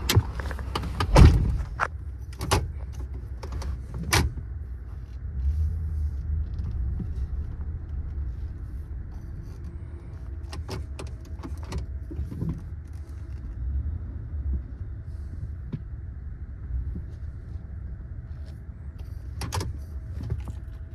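A 2013 Ford F-150 pickup's engine idling steadily as a low rumble heard inside the cab. Scattered clicks and knocks come over it, the loudest a thump about a second in.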